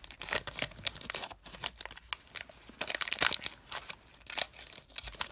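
Foil-lined Pokémon trading card booster pack wrapper being torn open and crinkled by hand: irregular crackling and rustling throughout.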